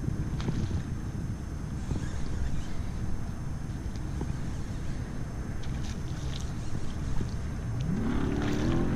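Wind buffeting the microphone on open water, a steady low rumble with a few faint clicks while a trout is played on rod and reel. Near the end a droning hum rises in pitch and then holds steady.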